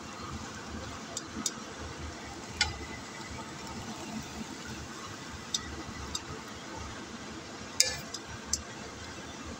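A spatula clinking and scraping against a stainless steel pan while stir-fried noodles are tossed: scattered sharp metallic clicks, the loudest near the end, over a steady hiss.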